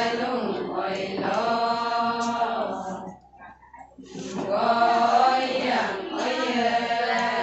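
Adi women's ponung folk song, chanted in unison by a line of women. One long sung phrase breaks off about three seconds in, and after a short pause the next phrase begins.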